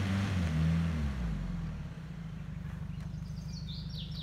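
Toyota 4Runner's engine revving up and down as the SUV crawls along a muddy forest track, then settling to a steady low run. Near the end a bird chirps a few quick falling notes.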